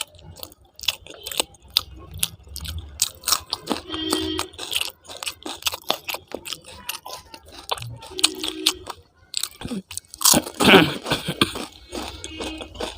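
Close-miked chewing and biting of a person eating aloo paratha with dum aloo: wet mouth clicks and crunches. Short hums come about four and eight seconds in, and a louder vocal sound about ten seconds in.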